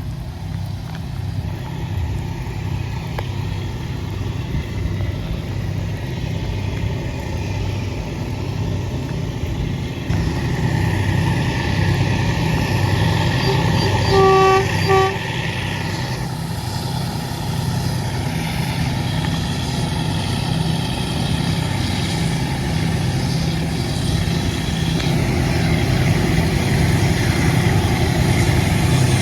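Two GE U10B diesel-electric locomotives working upgrade, their Caterpillar D398 V12 engines running under load with a steady pulsing rumble that grows louder as they approach. About halfway through, the locomotive horn sounds one blast followed by a short second one.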